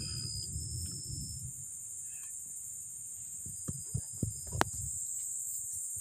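Steady high-pitched chorus of forest insects, with rumbling handling noise on the microphone at first and a few sharp clicks and knocks about four seconds in.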